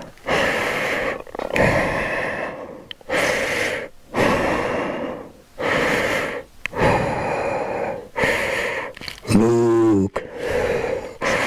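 A man breathing heavily in and out behind a helmet's mouthguard, about nine loud breaths in a steady rhythm, with a short voiced groan near the end. The breathing is laboured because the mouthguard makes it hard to get air.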